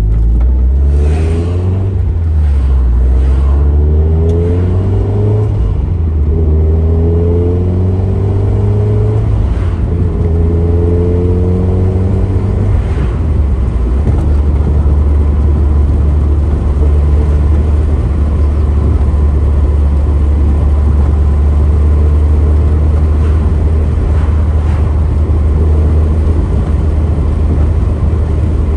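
Nissan Pulsar GTi-R's turbocharged SR20DET four-cylinder engine, breathing through a new custom turbo-back exhaust, accelerating up through the gears. The engine note rises and drops back with each of several shifts over about the first twelve seconds, then settles into a steady cruise. Heard from inside the cabin.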